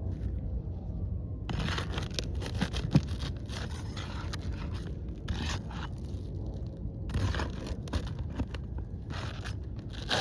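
Asphalt 3-tab shingles scraping and tearing in irregular gritty strokes as a damaged shingle is worked loose and pulled from under the neighbouring shingles, with one sharp knock about three seconds in.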